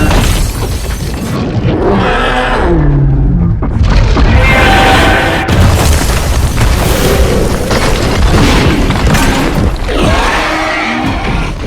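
Giant-monster battle soundtrack: heavy booms and crashing impacts of destruction, with monster roars that glide and fall in pitch, several times, over a film score.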